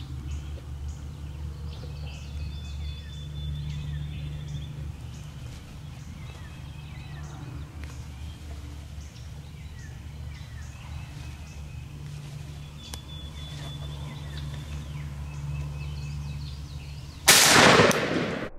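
Faint bird chirps over a steady low hum, then a single loud shotgun blast near the end that dies away over about a second.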